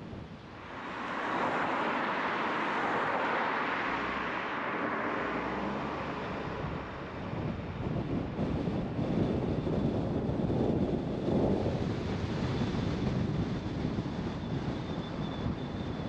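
Traffic and road noise mixed with wind while driving through city streets. A rushing swell builds about a second in and fades after several seconds, followed by a lower rumble.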